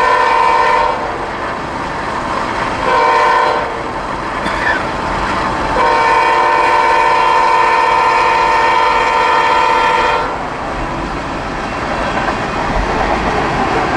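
Diesel locomotive air horn sounding a chord: the end of one long blast, a short blast about three seconds in, then a long blast of about four seconds. This is the long-long-short-long grade-crossing signal. The steady rumble of the train rolling past follows.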